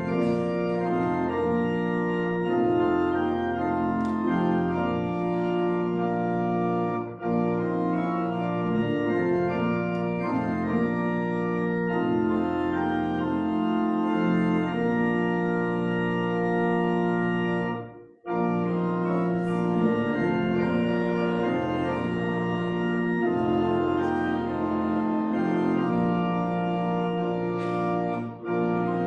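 Church organ playing a hymn in held chords, breaking off for a moment about eighteen seconds in.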